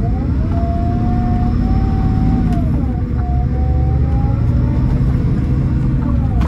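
Scania K440EB6 coach heard on board under way: the 13-litre six-cylinder diesel and driveline make a steady low rumble with a whine over it. The whine climbs, dips about three seconds in, then climbs again.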